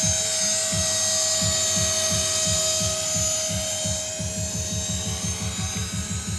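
Tarot 450 Pro electric RC helicopter in flight: a steady high whine from its brushless motor and drive, over a rapid low pulsing from the rotor. It gets a little quieter about four seconds in.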